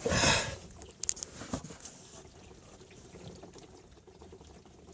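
Water running over the roof and sunroof of a 2012 BMW X3, heard from inside the cabin as a faint, steady pour during a water test for a roof leak. A short rush of noise opens it, and a few light clicks follow about a second in.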